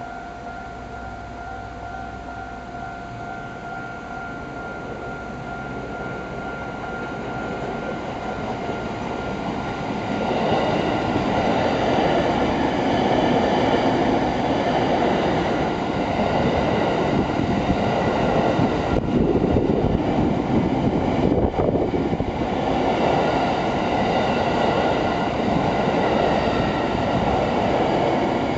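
Japanese level-crossing alarm ringing its steady electronic bell, then a JR E231 series electric commuter train approaches and runs past over the crossing, its rail and wheel noise swelling from about five seconds in and loud from about ten seconds on, drowning out the bell.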